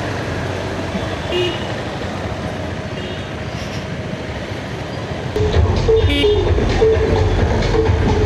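Busy street traffic noise with short vehicle horn toots. About five seconds in, loud electronic dance music with a heavy bass beat starts abruptly.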